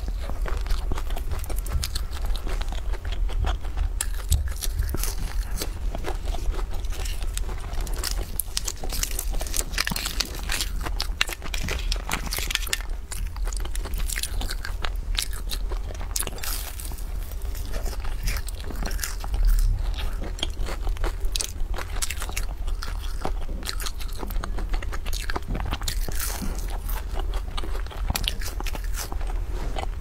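Close-miked biting and chewing of flaky baked pastry, with many small crackling crunches from its crisp layers.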